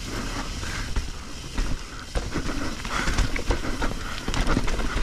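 Mountain bike clattering and rattling over roots and rocks while riding fast down a dirt trail, with a low rumble of wind on the microphone.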